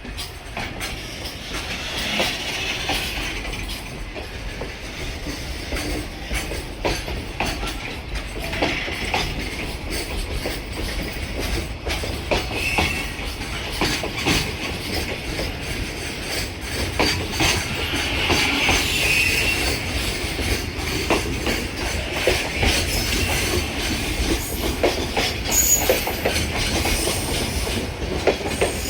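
A train's wheels clattering over the rail joints as it rolls past, a steady run of clacks and rattles with some wheel squeal, growing louder over the stretch.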